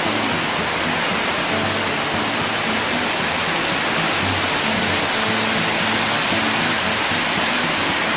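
River water rushing steadily over a weir, with background music faintly underneath.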